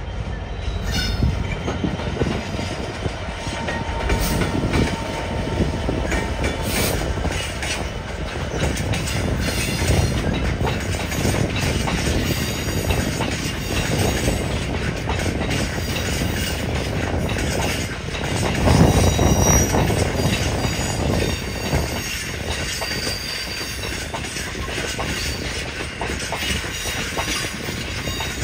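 A train running along the track: continuous wheel and rail noise with frequent clicks, swelling to its loudest about two thirds of the way through.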